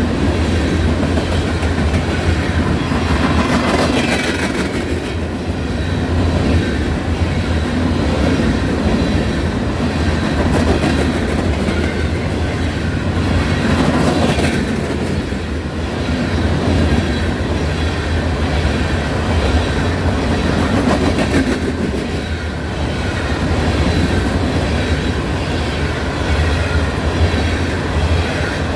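Norfolk Southern coal train rolling past: a steady heavy rumble of the hopper cars on the rails that swells and eases slowly, with wheel clacks over the rail joints.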